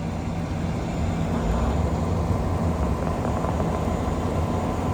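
A vehicle engine running steadily, a low, even drone with no change in speed.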